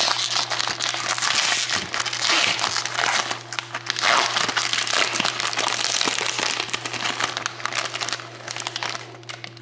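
Foil-lined wrapper of a pack of hockey cards being torn open and crinkled by hand: a dense, crackly rustling that eases off near the end. A steady low hum runs underneath.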